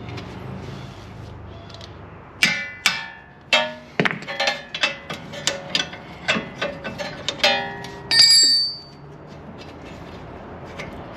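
Metal tools and parts clinking and clanking: a run of separate sharp metallic knocks, each ringing briefly, with a louder, harsher clatter a little after eight seconds in.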